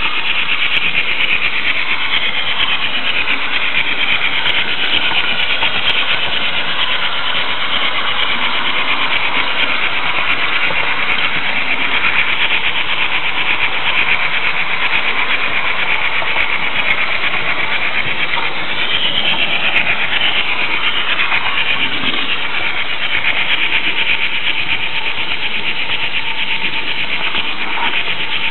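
H0 Märklin model train rolling along the track, heard from a camera riding on one of its flat cars: a steady, loud whirring rattle of wheels and motor, with a few high squeals that glide in pitch about two-thirds of the way through.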